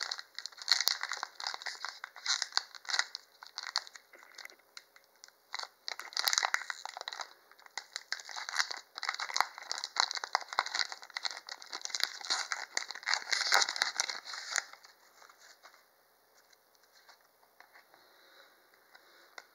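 Foil wrapper of a Pokémon booster pack being torn open and crinkled by hand: a long run of crackly rustles and tearing that stops about fifteen seconds in.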